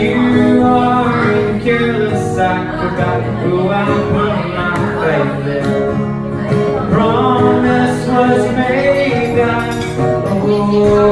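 Acoustic guitar strummed and picked under a singing voice in a live song, playing steadily without a pause.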